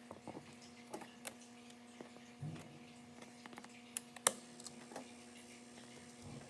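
Irregular light clicks and taps, the sharpest a little past four seconds in, over a faint steady hum.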